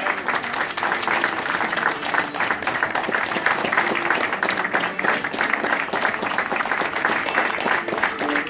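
An audience applauding steadily: many hands clapping at once in a dense, even patter.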